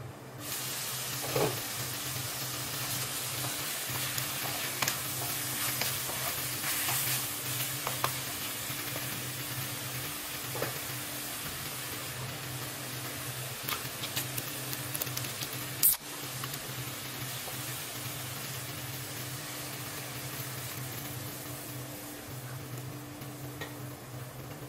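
Chicken wings sizzling as they fry in a nonstick pan, with scattered light clicks and one sharp click about two-thirds of the way through, over a steady low hum.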